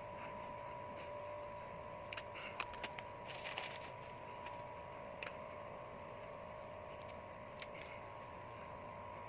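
Faint clicks, crackles and rustles from hands handling small craft materials, most of them bunched a couple of seconds in, with a few single ticks later, over a steady two-tone hum.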